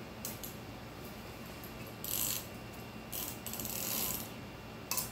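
Valve spring compressor and small steel tools clicking and scraping against the valve spring retainer and keepers on a cylinder head, in several short metallic bursts, the longest about three and a half to four seconds in.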